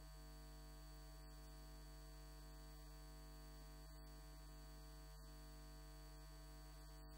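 Near silence: a steady electrical mains hum with no audible speech.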